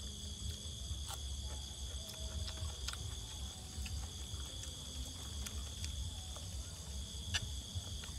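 Crickets and other night insects chirring in a steady, high, even drone over a low hum, with a few light clicks of a spoon against a plate as food is eaten.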